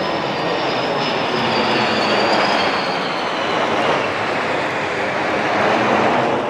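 Turbofan jet noise from a P-8I and two Rafale fighters flying past in formation: a loud, steady rush with a high whine that slowly falls in pitch over the first few seconds.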